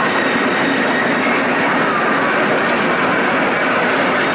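San Francisco cable car running along its street rails: a steady loud rumble of wheels on track, heard from the open side step.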